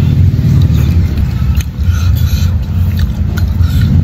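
Loud, steady low machine rumble with an even hum in it, like a motor running close by, with a few faint short clicks and smacks from eating with a spoon over it.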